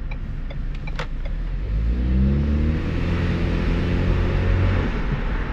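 Turbocharged car engine running with its air intake removed, the turbo plainly audible. About two seconds in it accelerates, the engine note rising and then holding before easing off near the end, with a single click about a second in.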